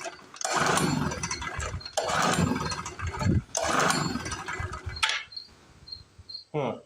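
Small two-stroke portable generator engine being cranked on its recoil pull-starter: three hard pulls in quick succession, each a rattling whirr of about a second and a half, with the end of an earlier pull at the start. The engine turns over but never fires, which the owner puts down to no fuel reaching the carburetor. Crickets chirp faintly in the background.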